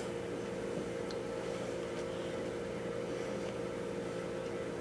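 Microwave oven running on defrost with a steady hum.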